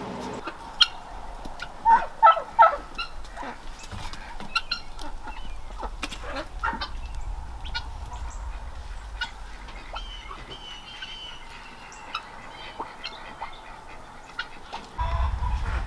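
Fowl calling in short clucks and chirps, a few louder calls about two seconds in, over a low steady rumble.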